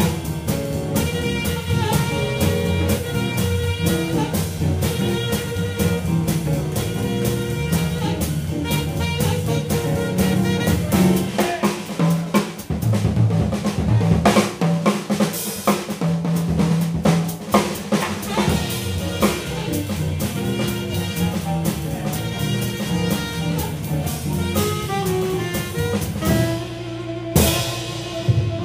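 Live small-group jazz: tenor saxophone, guitar, piano, upright bass and drum kit playing an up-tempo swing number, with the drums prominent. About halfway the bass drops out for a few seconds while the drums carry on, and near the end a sharp accented hit leads into held notes.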